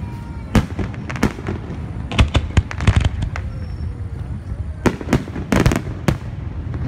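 Aerial firework shells bursting overhead: a string of sharp bangs at uneven intervals, bunched about two to three seconds in and again between five and six seconds in, over a steady low rumble.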